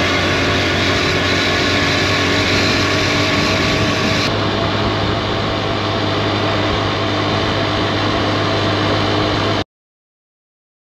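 A 110cc motorcycle engine running steadily while riding, under a broad rushing hiss that eases a little about four seconds in. The sound cuts out completely near the end.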